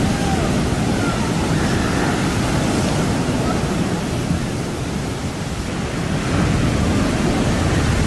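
Heavy ocean surf: big waves breaking over shore rocks and foaming water rushing up a sandy beach, a loud steady rush that eases slightly and swells again about six seconds in.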